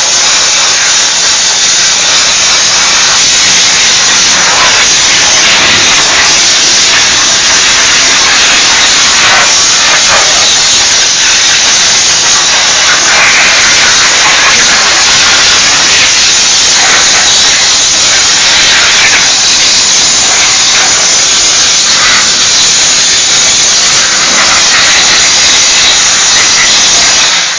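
Diesel steam cleaner's nozzle hissing out a loud, continuous jet of steam, which cuts off right at the end.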